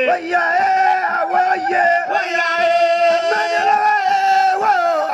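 Men chanting together in long held notes that slide from one pitch to the next, over a faint low beat about twice a second: singing for a masked dance.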